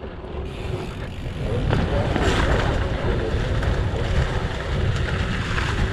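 Mountain bike ridden quickly down a dirt trail after a small wooden drop: wind rushing over the camera microphone, mixed with a steady rumble from the tyres and bike.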